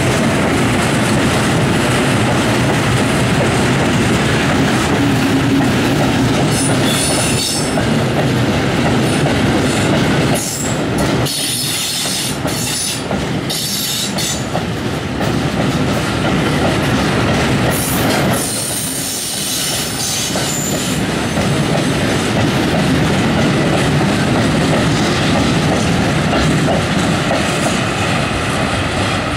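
Freight train's hopper wagons rolling past at close range, wheels clattering steadily over the rails, with brief spells of high wheel squeal around the middle.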